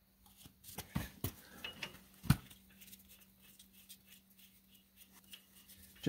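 Steel lug nuts clinking as they are handled and spun by hand onto wheel studs: a few sharp metallic clicks in the first two and a half seconds, the loudest about two seconds in, then faint light ticking.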